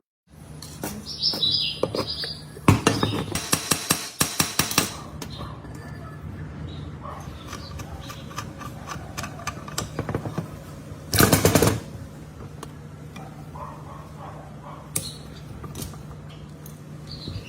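Metal parts clinking and clattering as an old siren is taken apart and worked on, with a rapid run of knocks about three seconds in and a short loud burst of noise near the middle, over a steady low hum.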